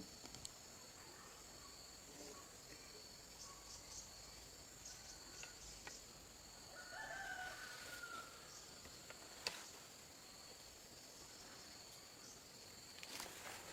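A rooster crowing once, faint, about halfway through, over a steady high-pitched insect drone, with a few faint clicks.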